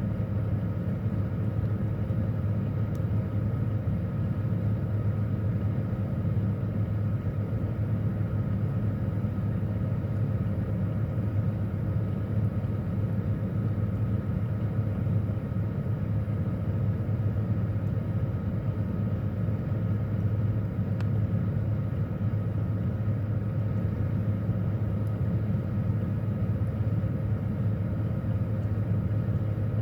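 Refrigerator running with a steady low hum and a few faint steady higher tones, heard from inside the closed fridge.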